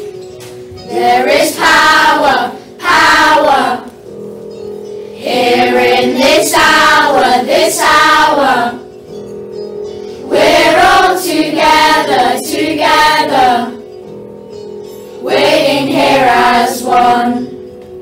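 Group of children singing a worship song with instrumental accompaniment. The singing comes in short phrases, and the accompaniment carries on alone in the gaps between them.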